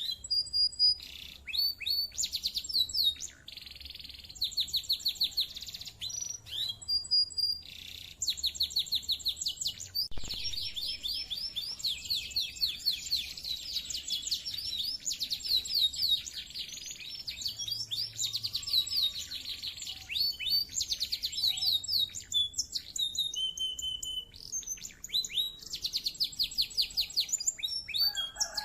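Domestic canary singing: long, fast high-pitched trills and rolling repeated-note phrases, broken by short pauses.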